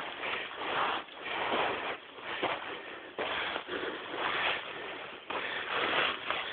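Footsteps crunching and scraping over loose volcanic rock and sand while walking uphill, coming in uneven bursts about once a second.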